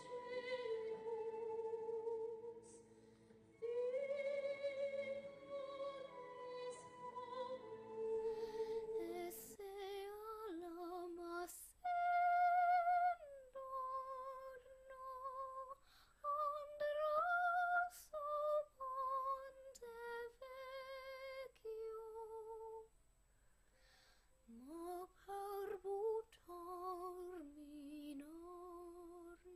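A young girl singing in a classical, operatic style with vibrato, over an accompaniment. About nine and a half seconds in, it changes to the girl singing alone, unaccompanied, in separate phrases with short pauses.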